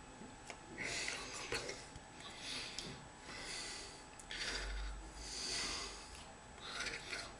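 A man breathing audibly through his nose close to the microphone: a run of hissy breaths, roughly one a second. There is a low bump about four and a half seconds in.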